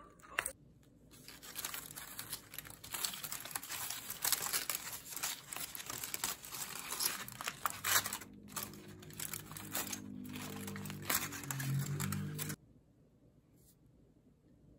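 Aluminium foil crinkling and tearing as hands pull open the foil wrap around a chicken skewer. A dense run of crackles that stops abruptly near the end.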